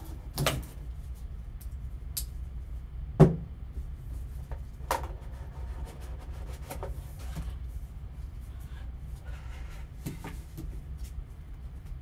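A sealed sports card box being unwrapped and opened by gloved hands: rustling of shrink wrap and a series of knocks and taps of the cardboard box and lid, the loudest about three seconds in, over a steady low hum.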